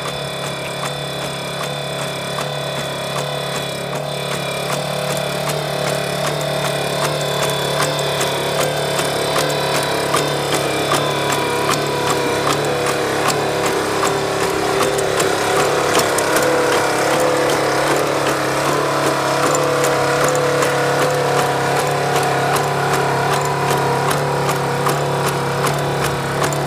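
Boston Dynamics LS3 robotic mule running: its onboard engine and hydraulic drive make a steady drone with a wavering whine on top. It grows louder in the middle as the robot walks up close.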